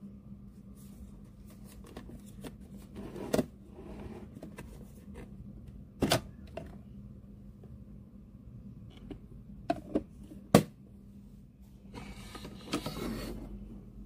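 A handful of sharp plastic clicks and knocks as a filter coffee maker's lid and carafe are handled, the loudest about two-thirds of the way in, with a rustling scrape near the end, over a faint steady hum.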